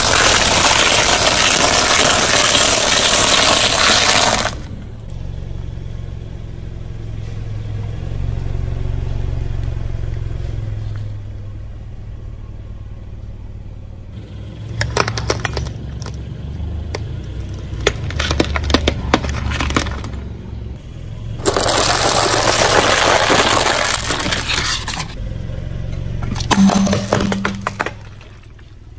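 A vehicle's tyres rolling over and crushing crunchy objects, with a low engine running underneath. There are two long stretches of loud crunching, one at the start and one past the middle, and runs of sharp cracks and snaps between them and near the end.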